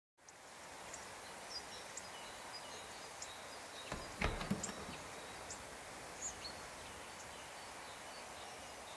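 Faint outdoor ambience: a steady background hiss with scattered short high bird chirps, and a brief louder knock about four seconds in.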